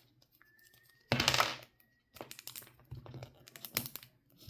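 Plastic Mini Brands capsule ball being worked open by hand: a short, loud rustling burst about a second in, then a run of small plastic clicks and taps.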